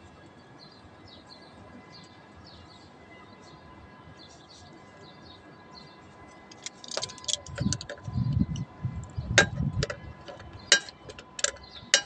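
Handling noise of a pipe being fitted onto a water pump's brass outlet fitting: irregular knocks, rubbing and sharp metallic clicks starting about seven seconds in. Before that only faint chirps are heard.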